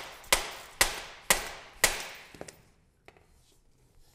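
A mallet striking an aluminium power steering rack to seat its solid metal mount bushings, about two sharp blows a second, each ringing briefly. The blows stop about two seconds in, leaving only a few faint taps as the rack is handled.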